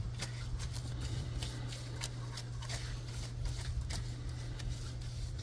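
Soft bristle brush scrubbing a wet chrome wheel rim: quick, irregular scratchy strokes. A steady low hum runs underneath.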